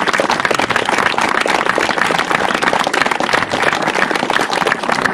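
A group of people applauding, a steady patter of many hands clapping.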